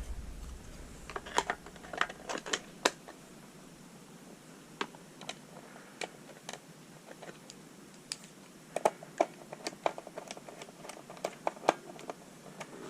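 Scattered small plastic clicks and taps of AA batteries and a battery compartment being handled, irregular and in little clusters.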